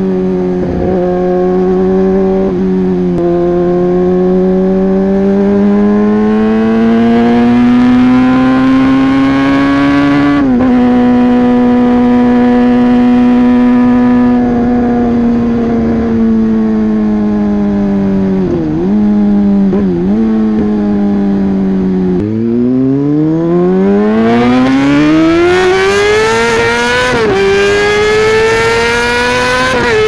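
Yamaha YZF-R6's inline-four engine with an SC-Project aftermarket exhaust, heard from the rider's seat under way. The revs climb slowly and fall back at gear changes, dip briefly twice near the middle, then rise steeply under hard acceleration with another gear change near the end, as wind noise grows with speed.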